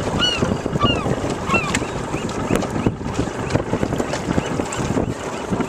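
Crab pot line hauled hand over hand over the side of a small aluminium boat, with wind buffeting the microphone and scattered knocks of rope and gear. A quick run of short honking bird calls, about three a second, in the first two seconds.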